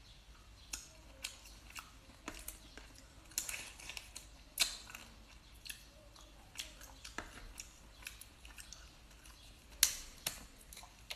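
Close-up eating sounds: chewing and sucking on Boston lobster meat, broken by scattered sharp clicks and cracks of the shell being pulled apart by hand, the loudest crack near the end.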